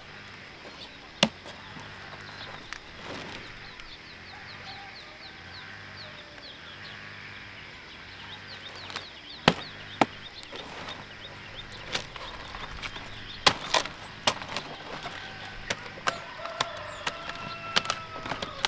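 Chickens clucking, with sharp knocks scattered through; the loudest come about a second in and in a cluster around the middle.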